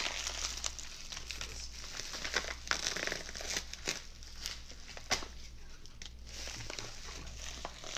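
Bubble wrap and plastic packing being crinkled and torn open by hand, a steady run of crackles with a few louder snaps.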